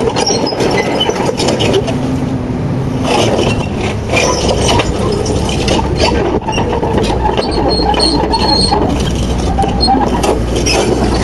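Crawler excavator's diesel engine running while its steel tracks clank, with short high squeals from the track links now and then.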